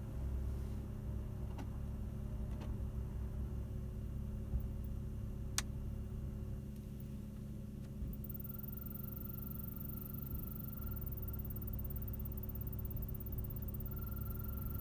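BMW E60 heater blower fan running with a steady hum and a few light ticks; about eight seconds in a thin, steady high squeal joins it. The squeak comes from the blower motor, which is to be taken out, lubricated and checked for wear.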